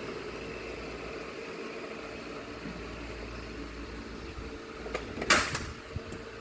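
Steady hum of a fan or air conditioner in a small room, with one short clatter about five seconds in, as of a loose part of the machine being handled.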